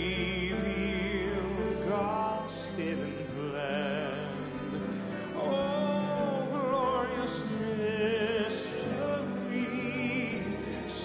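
A male vocalist singing slow, sustained phrases with wide vibrato over orchestral accompaniment.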